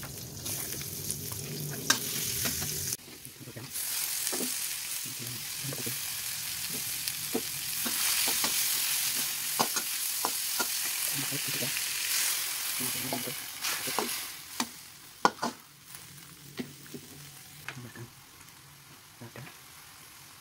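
Shallots, garlic, shrimp and wood ear mushrooms sizzling in hot oil in a wok while a spatula stirs them, scraping and tapping against the pan. The sizzle dies down about two-thirds of the way through, leaving mostly the spatula's clicks.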